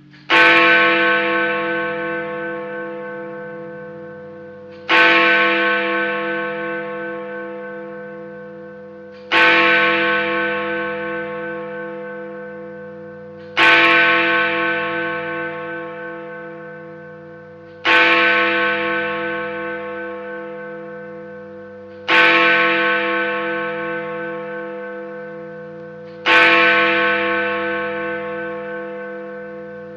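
Big Ben clock bell sound effect: one bell struck seven times, about every four seconds, each stroke ringing out and slowly fading, the repeated single strokes of a clock striking the hour.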